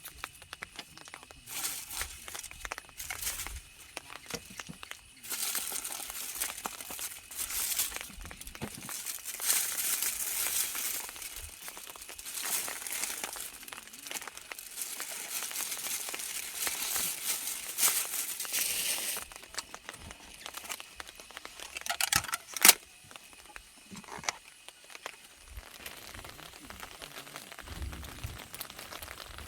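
Crinkling and rustling of something crinkly being handled, in irregular bursts, with a sharp click about 22 seconds in.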